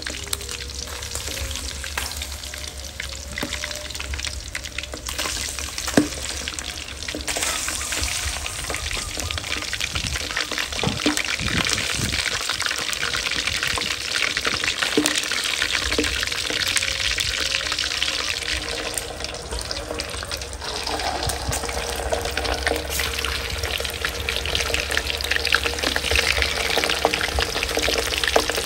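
Eel pieces frying in hot oil in a steel wok, a steady sizzle and crackle that grows louder about seven seconds in and again near the end. A sharp clack sounds about six seconds in.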